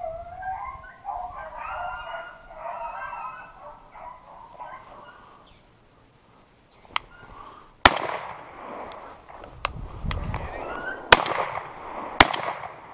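Hunting dogs baying in chase for the first few seconds. Then, after a short lull, brush rustling with several sharp snaps and cracks as the hunter pushes through pine thicket carrying a shotgun.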